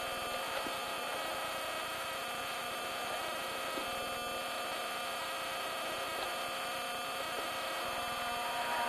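Steady, even hum with several held tones inside a stationary rally car's cabin at the stage start.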